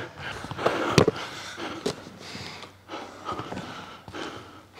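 Basketball dribbled on a hardwood gym floor: slow single bounces about a second apart, the loudest about a second in.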